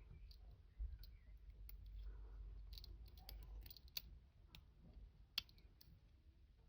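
Faint, scattered clicks from a Euro cylinder lock being picked with a hair grip and tensioner: the pin stack clicking as the pins are raised and set under tension, with a low handling rumble underneath. Two clicks, about 4 and 5.4 seconds in, are the loudest.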